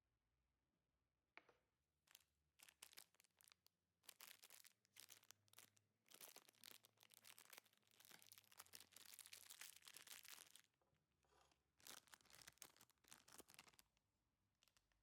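Wrapper of a packaged vanilla muffin being torn open and crinkled, in irregular bursts of crackling with short pauses. It starts about a second in and stops shortly before the end.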